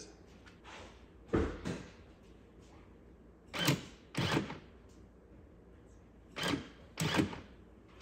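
Porsche Boxster 986 front-trunk latch release operated three times, each time a pair of sharp mechanical clunks less than a second apart as the cable pulls the latch and lets it go. The release is still working and trying to open the latch, a sign that the fault lies in the latch mechanism and not in the release.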